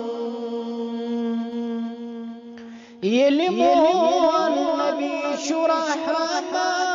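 A man singing a Kashmiri devotional nasheed: he holds one long note that fades out with a breath, then about three seconds in starts a new phrase that swoops up and wavers through ornamented runs.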